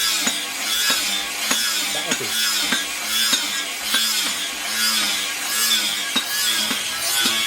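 Background music with a steady beat: a held low note under regular sharp ticks and rhythmic hissing strokes.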